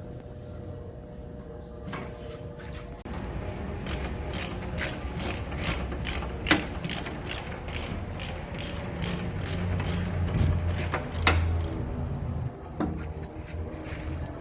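Ratchet wrench clicking in a steady run of about two to three clicks a second, from about four seconds in until near the end, as a part is unbolted.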